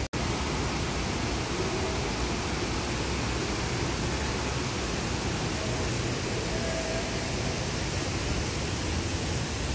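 Steady rushing of a fast-flowing, swollen river running through a concrete channel, with a few faint brief tones in the background about halfway through.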